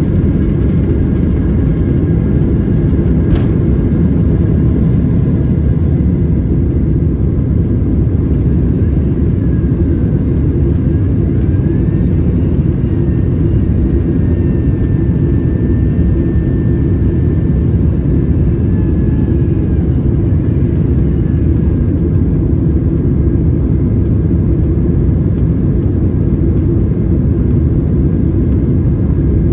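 Steady, loud jet engine and airflow rumble heard inside the cabin of a Boeing 767-300ER airliner, with a faint whine above it and a single sharp click a few seconds in.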